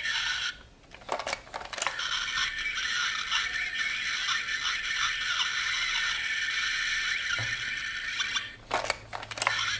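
Bootleg Kamen Rider Ex-Aid toy transformation belt playing its sound effects and music through a very poor, tinny speaker with almost no bass. A few sharp clicks come about a second in and again near the end.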